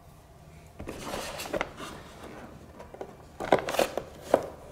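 Handling noise: rustling, then three sharp clicks and knocks near the end, as a small fuel pump and its fuel lines are pressed into place inside a model jet's fuselage.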